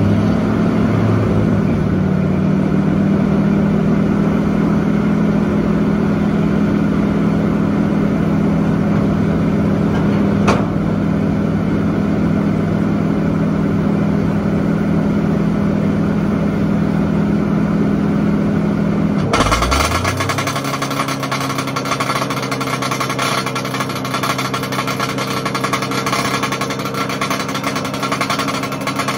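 Old drum wood chipper's Ford engine running steadily, with one brief sharp click about ten seconds in. About nineteen seconds in, the sound changes abruptly to a lower engine note with a fast metallic rattle over it: the kind of clanking the owner traces to a plate on the bottom that needs a sleeve and cotter pin.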